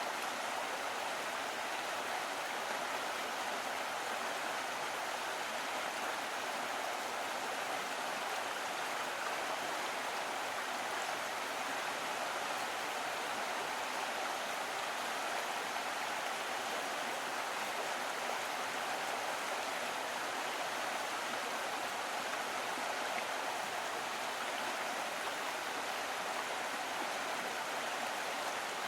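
Small stream of water running steadily, an even rushing and babbling with no changes.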